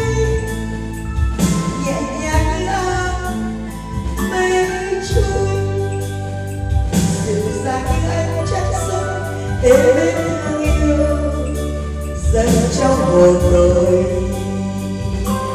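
A woman singing a Vietnamese ballad into a handheld microphone in several phrases, over electronic keyboard accompaniment with held chords and a steady bass line.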